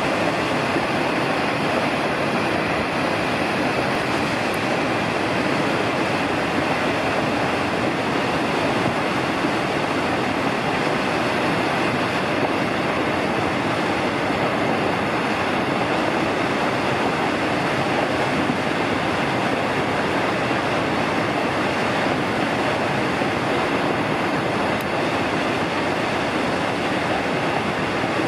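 Salto Grande, a large waterfall on the Paine River, pouring over a rock ledge: a loud, steady rush of falling water.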